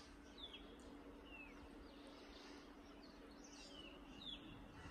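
Faint birds chirping, a handful of short falling calls spread across a quiet outdoor background.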